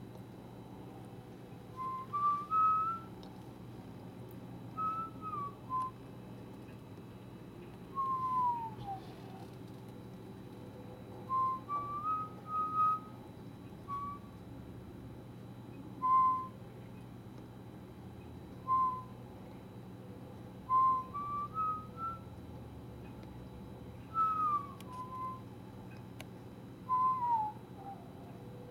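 Whistling: short clear notes every two to three seconds, some stepping up in pitch in two or three steps and some sliding downward, over a low steady hum.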